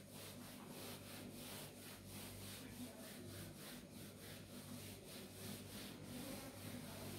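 Whiteboard duster wiping a whiteboard in quick back-and-forth strokes, a faint rhythmic swishing at about four strokes a second that stops near the end.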